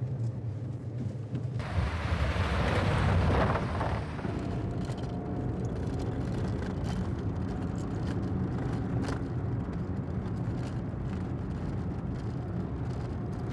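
Car driving, heard from inside the cabin: a steady low engine hum under tyre and road noise, with a louder rushing swell between about two and four seconds in.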